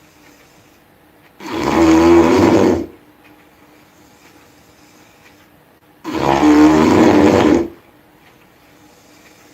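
A person snoring loudly: two long snores about four and a half seconds apart, each lasting about a second and a half, with quiet between them.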